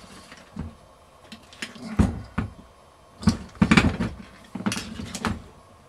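Metal compressor parts and tools being handled, giving a string of irregular clinks and knocks, the loudest about two seconds in and a quick cluster a little before the four-second mark.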